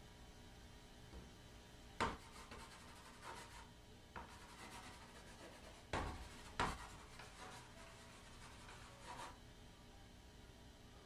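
Chalk writing on a chalkboard: stretches of scratchy strokes broken by three sharp taps as the chalk strikes the board.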